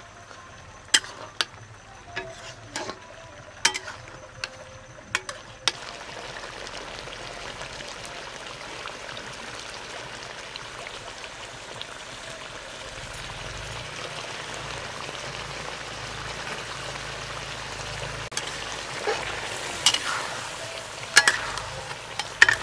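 Potatoes and chicken frying in oil in a kadai, stirred with a metal spatula: for the first six seconds the spatula clacks against the pan several times, then a steady sizzle starts suddenly and keeps going, with a few more spatula knocks and scrapes near the end.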